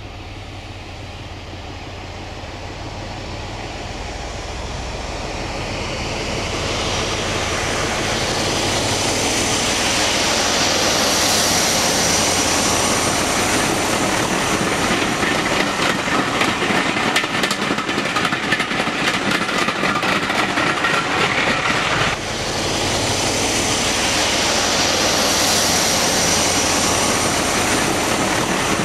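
BR 'Peak' diesel-electric locomotive working under power, its Sulzer twin-bank engine growing louder over the first ten seconds as the train approaches, then running loud and steady as it passes close by.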